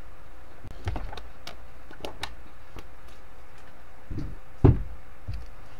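Scattered small clicks and knocks in a room, about six of them, over a steady background hiss with a faint hum. The loudest is a dull thump near the end.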